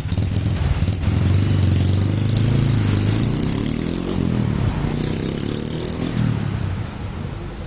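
Fuel-injected motorcycle engine revved up about a second in, held at raised revs with its pitch shifting, then easing back near the end.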